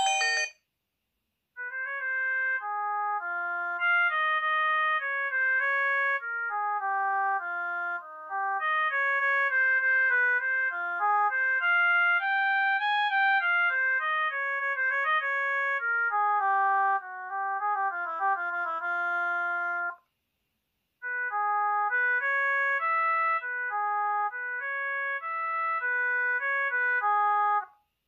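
BLT V998 mobile phone polyphonic ringtones playing one after another as synthesised melodies. One tune ends just after the start, another plays until it cuts off about 20 seconds in, and a third starts a second later.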